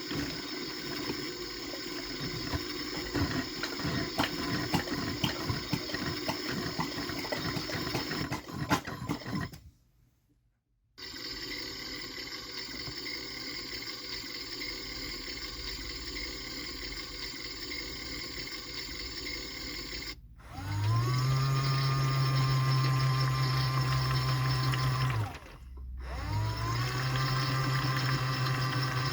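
Washing machine in its final rinse: water sloshing with light clicks, cut off abruptly for about a second, then steady running. About two-thirds in, a motor starts with a hum that rises in pitch and settles, stops briefly, then starts and rises again.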